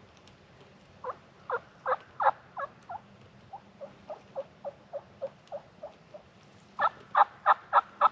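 Turkey yelping: a run of about six loud yelps, then a softer run of about ten, then a loud, quicker run starting near the end, each yelp short and about a third of a second apart, the cadence used to call in a gobbler.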